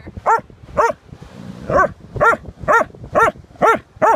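A dog barking in short, high, repeated barks, about two a second, with a brief pause after the first two. It is barking down into a hole it has dug in beach sand, after a crab hiding there.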